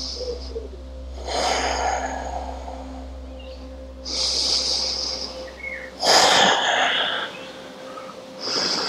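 A person breathing slowly and deeply in a held yoga stretch: four long, hissy breaths in and out, the third the loudest.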